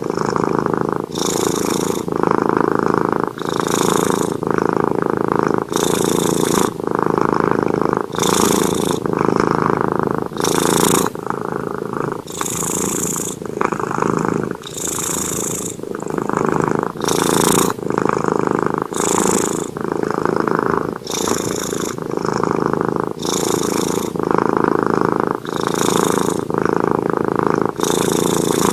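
Domestic cat purring steadily. The purr swells and dips with each breath, in a regular cycle about every two seconds.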